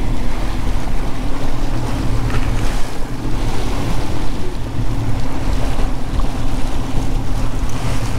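Twin outboard motors running steadily, with wind buffeting the microphone and water rushing past the hull.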